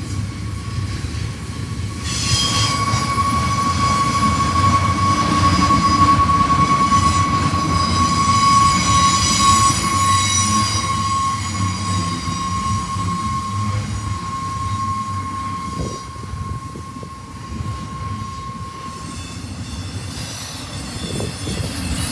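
Double-stack container train's well cars rolling past with a steady low rumble. A single high steady wheel squeal starts about two seconds in and fades out near the end, with a few short clanks just before the end.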